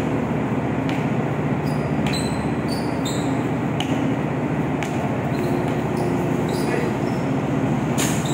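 Basketball being dribbled on a ship's deck, a sharp smack about once a second, over a steady low drone of the ship's machinery.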